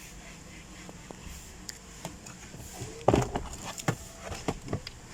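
A run of sharp clicks and knocks as a car's glove box compartment is unclipped and taken out, starting about three seconds in, with the loudest knock first.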